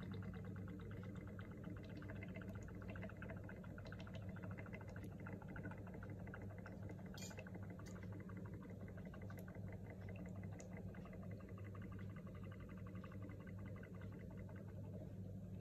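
Yellow ink draining from an upturned bottle into the ink tank of a Canon Pixma G3420 printer: faint, fast bubbling and gurgling that thins out in the second half, over a steady low hum. A single sharp click about seven seconds in.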